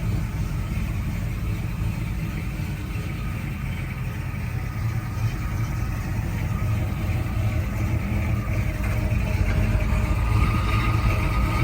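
A vehicle's engine running steadily, a little louder near the end.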